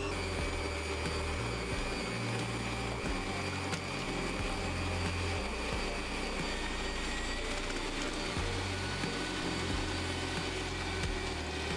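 Electric kitchen mixers running steadily with an even motor whine: a stand mixer beating egg yolks and sugar, joined partway through by a hand mixer whisking egg whites.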